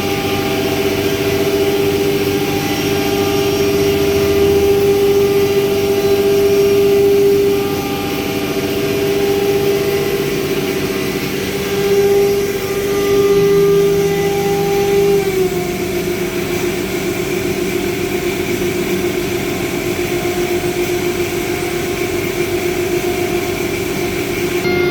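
Anderson America Spectrum 48 CNC router running, giving a steady whining tone over a rushing hiss; the pitch steps slightly lower about fifteen seconds in.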